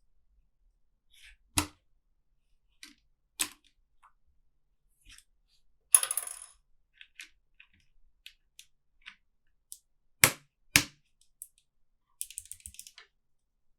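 Plastic keycaps on a low-profile mechanical keyboard clicking sharply as they are pulled off and pressed on. There is a clatter of loose keycaps about six seconds in, two loud snaps about ten seconds in and a short rattle near the end.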